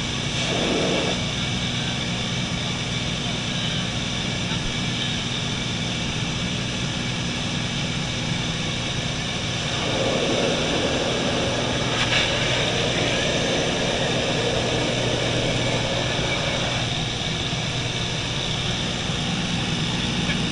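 Light propeller plane's engine droning steadily, heard from inside the cabin with air rushing in through the open side window. The rush grows louder for several seconds around the middle.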